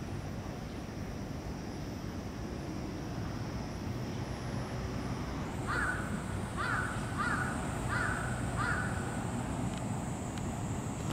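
A crow cawing five times in quick succession about halfway through, over steady background hum.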